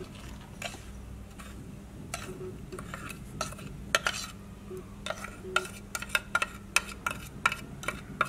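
Metal spoon tapping and scraping against a small dish and bowl as dry spice powders are pushed out and into the bowl: a series of short clicks that come faster from about halfway through.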